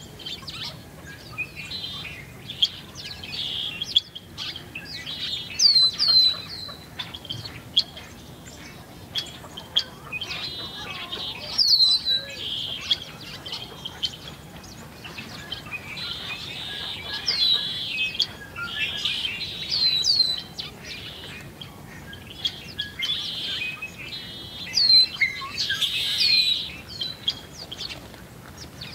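A flock of small songbirds chirping around a seed feeder: many short, high chirps and hooked, downward-sweeping calls overlapping almost without a break, with a few rapid trilled runs and louder bursts every few seconds.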